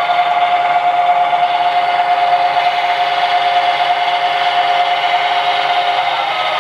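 O scale model freight cars rolling on curved 3-rail O gauge track, a steady clattering rush with a steady high whine over it that fades about six seconds in.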